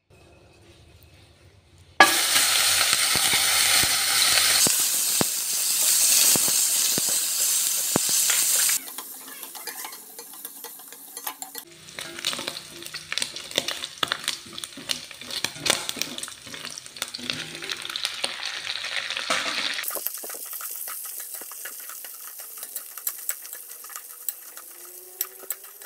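Sliced fatty pork frying in hot oil in a steel pan. A loud sizzle starts suddenly about two seconds in, then drops after several seconds to a quieter frying hiss with rapid scraping and clicking as a spatula stirs the pork and then the dried bottle gourd slices in the pan.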